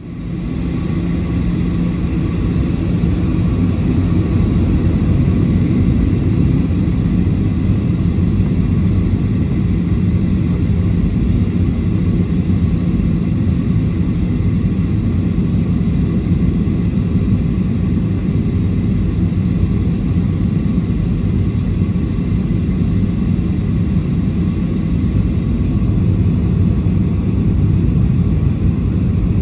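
Steady low cabin drone inside a Boeing 737-700 in flight: airflow over the fuselage and the CFM56-7B turbofan engines, heard from a forward window seat, with a faint steady hum.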